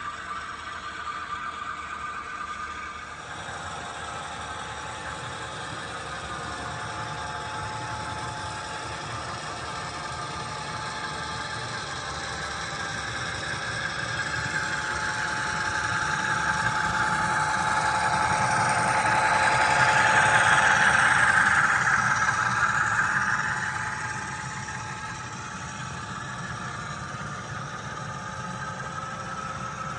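HO scale model freight train running past on its track, led by a model GP38 diesel locomotive; the running sound swells as the locomotive comes close, loudest about twenty seconds in, then drops back as the cars roll by.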